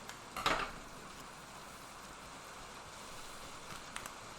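A brief rustling crinkle of a trading-card pack's wrapper being opened, about half a second in, then low room tone with a faint click near the end.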